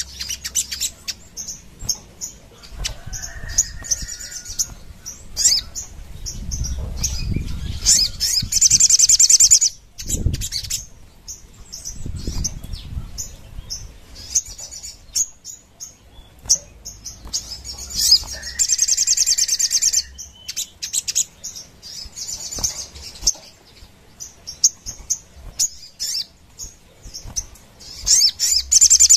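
Caged sogon songbird singing: short high chirps broken by three bursts of fast, high, buzzy trilling, each a second or two long, with low thumps and fluttering as it hops and flies about the cage.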